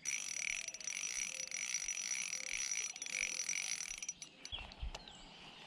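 Faint steady insect trilling with a few short low frog calls, which cut off about four seconds in, followed by a few soft knocks and a low rumble.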